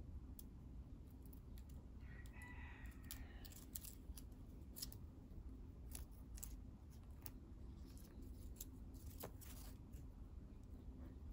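Faint, scattered crinkly clicks and ticks of gold metallic craft wire being twisted and wrapped around thin bamboo skewers by hand, with the sticks lightly tapping together.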